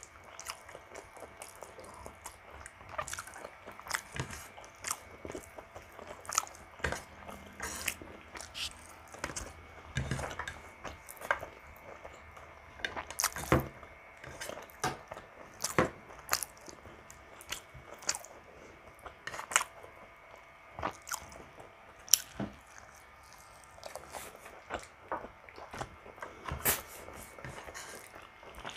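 Close-miked wet chewing and lip-smacking of a person eating stewed pork ribs and rice by hand, with irregular sharp smacks and clicks throughout.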